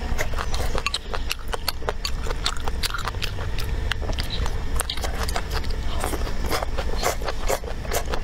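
Close-up chewing of stir-fried leafy green vegetable stems: many quick, irregular wet crunches and mouth smacks.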